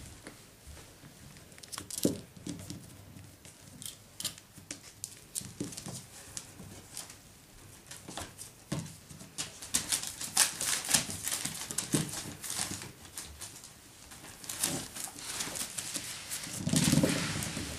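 Seven-week-old Parson Russell Terrier puppies at play: many irregular clicks and pattering steps of small paws on a wooden floor, with crinkling of newspaper and knocks of toys, busiest in the middle. There is a louder, lower burst of noise near the end.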